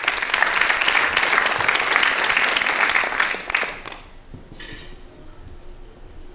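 Theatre audience applauding, a dense patter of many hands clapping that dies away after about four seconds.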